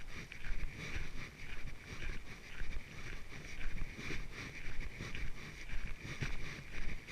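Walking footsteps on a trail, about two steps a second, with wind rumbling on the microphone and a steady high hiss.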